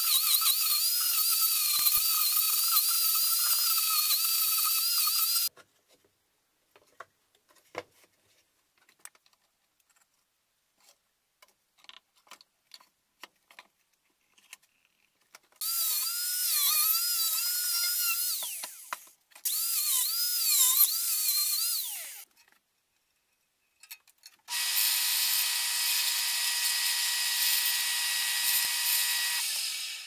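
Angle grinder with an abrasive disc shaping an apple-wood log, running in several bursts of a few seconds each that start and stop abruptly; its whine dips in pitch and recovers as the disc bites into the wood. Near the end a steadier, even-pitched power-tool whine runs for about five seconds.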